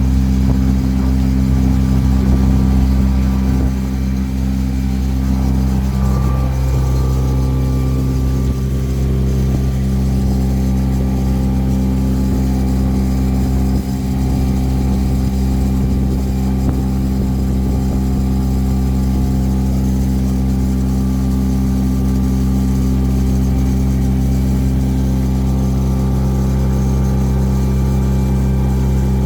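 Lake cruise boat's engine running steadily, a loud, even drone whose note shifts slightly about six seconds in and then holds.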